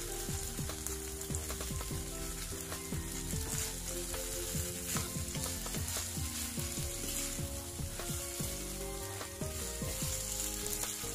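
Chicken pieces in a thick sauce sizzling in a non-stick frying pan while a wooden spatula stirs them, with a steady hiss and frequent small scrapes and clicks of the spatula against the pan.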